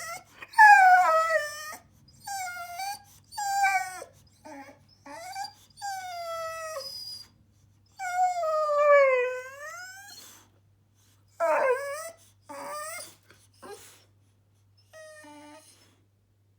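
Boxer dog 'talking': about a dozen whining calls that slide up and down in pitch, mostly short, with a longer one about eight seconds in that falls and then rises again.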